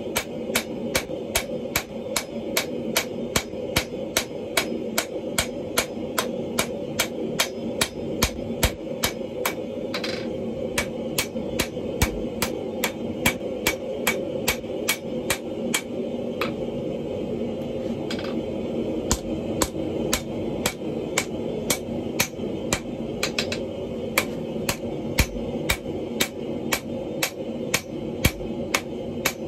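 Hand hammer blows on red-hot wrought iron on a steel anvil, a steady beat of about two strikes a second with a short pause about two-thirds of the way through, over a steady roar.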